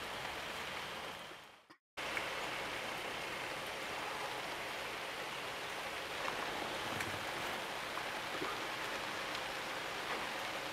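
Steady rainfall, an even hiss with a few faint drip-like ticks. It drops out to silence for a moment just before two seconds in, then resumes unchanged.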